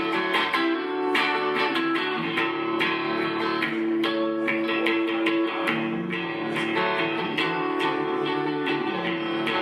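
Guitar strummed in a steady rhythm, chords ringing on, with a change of chord about halfway through.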